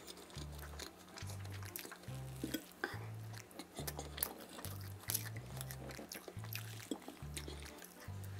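Soft background music with a regular bass line, under faint clicks of a fork on a plate and the chewing of soft cake.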